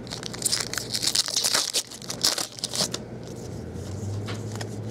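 Foil wrapper of a Topps baseball card pack being torn open and crinkled: a crackly, rustling burst for about the first three seconds, then quieter rustling as the cards are handled.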